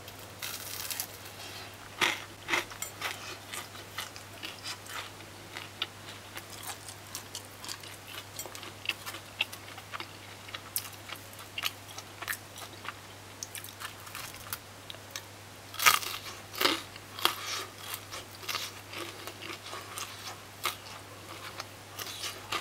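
Crunching and chewing of crisp fried saltfish fritters close to the microphone, with irregular crackles as the fritters are broken apart by hand.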